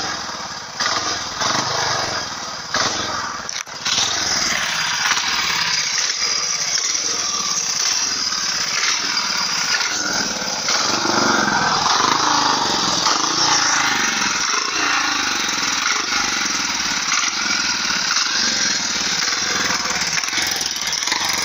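Godden GR500 speedway bike's 500 cc single-cylinder engine running, louder and steadier from about four seconds in.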